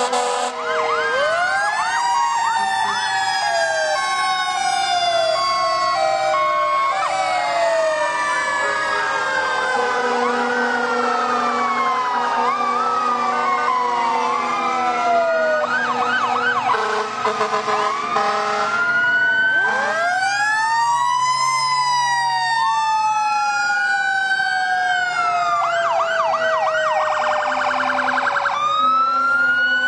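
Several fire truck sirens sounding at once and overlapping, wails rising and slowly falling, with bouts of fast warbling yelp several times. Short steady air horn blasts sound in among them.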